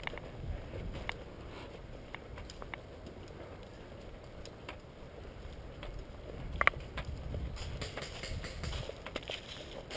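Irregular footfalls and rustling gear of a person moving on foot, picked up by a body-worn camera. One sharp metallic click or clack sounds about two-thirds of the way through.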